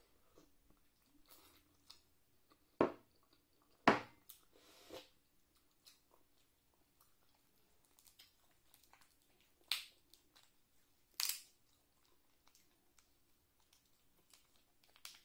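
Close-up eating sounds: chewing, and the crack and crunch of boiled shellfish shells being peeled by hand, with about five sharp snaps spread through.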